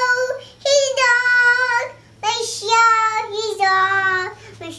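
A toddler singing a made-up song in a high voice: several short sung phrases with held notes and brief breaks between them.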